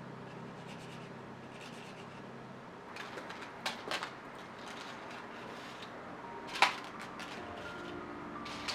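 A few light clicks and taps of small objects being handled on a work surface, with one sharper click about two-thirds of the way through, over faint room noise; soft background music comes back near the end.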